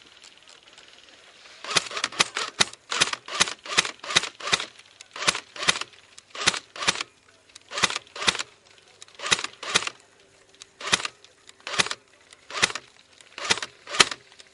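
Running footsteps with loose gear rattling on each stride. They start about a second and a half in and keep up a steady rhythm of paired strikes.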